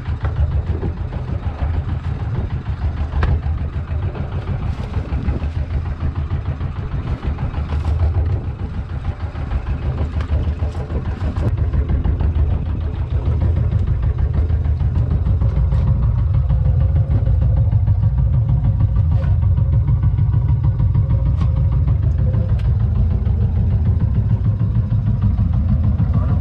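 A boat's engine running steadily with a low drone that grows a little louder about halfway through, with a few faint clicks and knocks over it.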